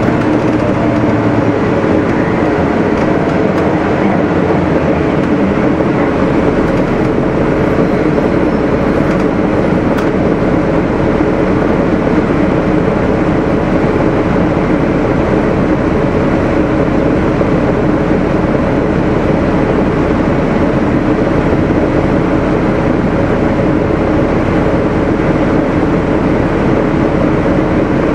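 Gillig Phantom transit bus under way, its Cummins ISL diesel engine running steadily with road noise.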